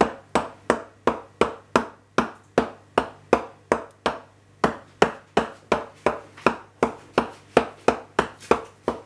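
Kitchen knife pricking holes in the raw dough top of a chicken quiche, one sharp tap with each stab, about three a second.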